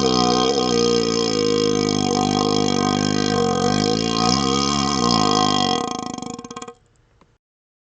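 A long, drawn-out burp through a hollow vacuum extension tube, its pitch wavering up and down. It breaks into a stuttering rattle and stops about six and a half seconds in.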